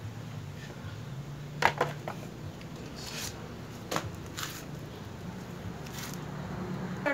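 A few light knocks, clicks and rustles from a Mitsubishi Strada front grille being handled and laid down on the ground, over a steady low hum.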